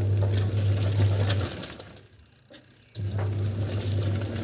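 Wash tub of an LG 7 kg semi-automatic twin-tub washing machine running a wash load: the motor hums and churns the water, stops about a second and a half in, and starts again about a second and a half later, as the pulsator pauses and reverses direction.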